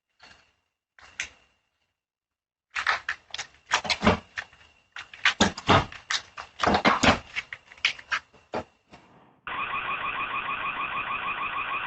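A few faint knocks, then about six seconds of hard, irregular banging and thudding at a door as someone tries to force it. Near the end a home security camera's siren switches on: a loud electronic alarm pulsing rapidly and steadily.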